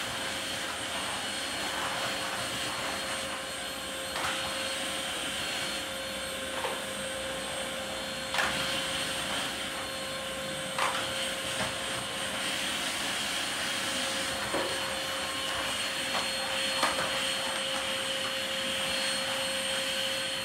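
Canister vacuum cleaner running steadily as its wand is worked over a tiled floor, with a few sharp clicks and knocks along the way.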